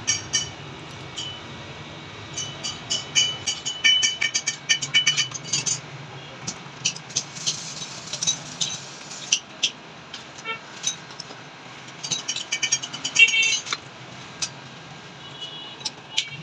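Sharp metallic clicks and taps in quick irregular runs over a steady low hum.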